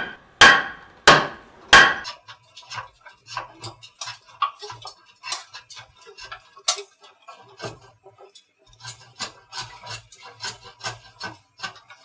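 Wooden mallet blows driving timber beams into the joints of a wooden house frame: three heavy knocks in the first two seconds, then many lighter, irregular taps and knocks.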